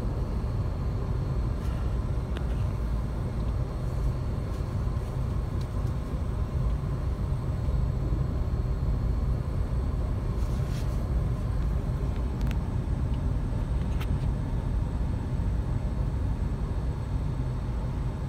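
Steady low rumble of idling road traffic heard from inside a stopped car, with a few faint clicks.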